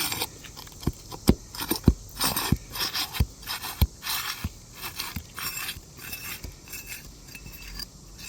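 Scraping and a run of sharp knocks from a pry tool working under asphalt roof shingles to lift them loose.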